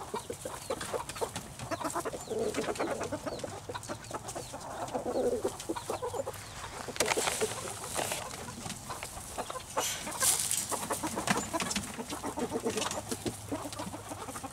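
Flock of hens and roosters clucking steadily while they feed, with scattered sharp clicks and a couple of brief bursts of rustling.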